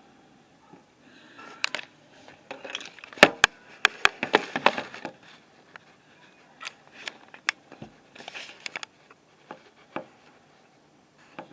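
Close handling noise: rustling and scraping with sharp clicks and knocks, irregular and busiest about three to five seconds in, then scattered single clicks.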